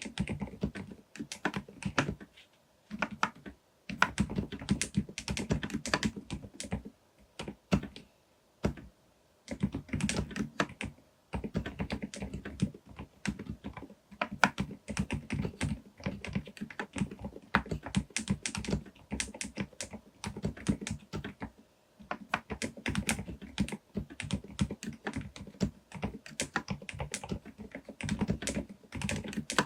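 Fast typing on a Groovestone GV10M-8K mechanical keyboard fitted with silent Milky S 38 g switches: dense runs of muted, low keystrokes, broken by brief pauses a few times.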